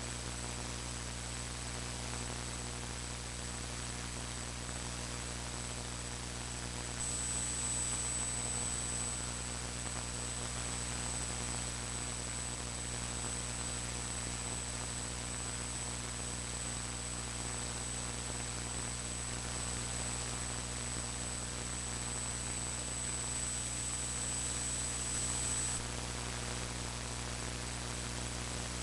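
Steady electrical hum and hiss from a faulty recording setup, with no speech. A thin high-pitched whine comes in about a quarter of the way in and stops shortly before the end.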